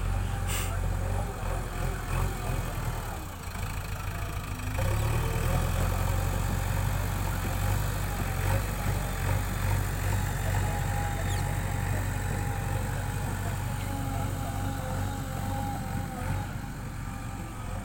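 Diesel engine of a JCB 3DX backhoe loader running steadily, getting louder about five seconds in.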